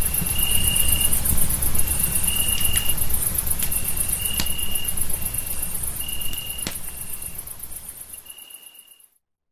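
Crickets chirring at night: a fast, high pulsed trill, with a clearer, lower note repeated about once a second. A few sharp crackles and a low rumble lie under it, as from a campfire. It all fades out over the last few seconds.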